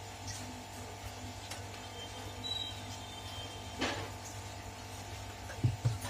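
Steady low background hum with light handling noise: a brief scrape about four seconds in, then two short dull knocks near the end as a digital multimeter and its test probes are set up on a silicone work mat.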